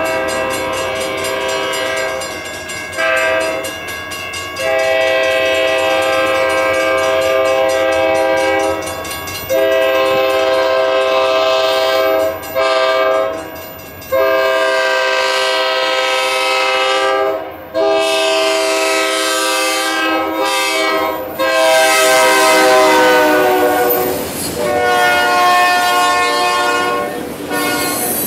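Multi-chime air horn of IORY 4072, an EMD SD40T-2 locomotive, blowing a series of long and short blasts for a grade crossing. The chord drops in pitch as the locomotive passes, and the horn keeps sounding as the freight cars roll by.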